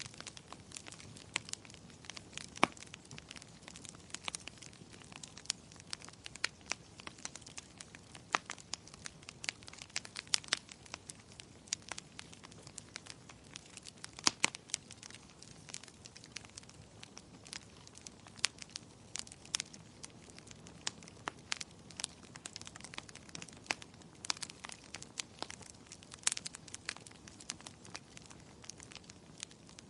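Wood fire crackling: irregular sharp pops and snaps, a few louder than the rest, over a soft steady hiss.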